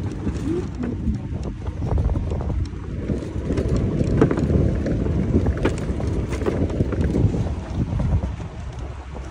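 Wind buffeting the microphone outdoors, a low, uneven rumble that rises and falls, with a few light clicks from handling.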